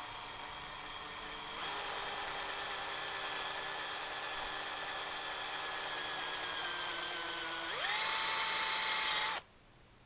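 Electric drill spinning a wire cup brush against a Tecumseh small-engine cylinder head, scouring off carbon deposits. The motor whine grows louder about a second and a half in and sags slowly in pitch under load. Near the end it rises sharply in pitch and loudness, then cuts off suddenly.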